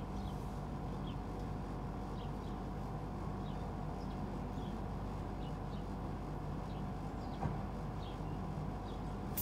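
A pigeon sneezing: one short, sharp click-like snort about seven seconds in, over a steady low hum and faint scattered chirps.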